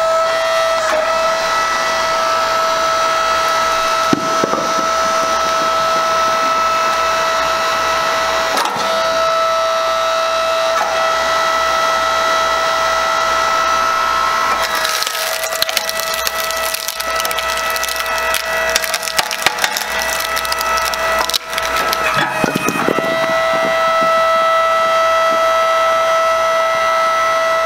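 Geumseong GS1800 9-ton electric hydraulic log splitter running with a steady motor-and-pump whine as the ram drives a log onto the wedge. The wood cracks and splinters as it splits, with a few sharp knocks, most intensely from about halfway to three-quarters of the way through.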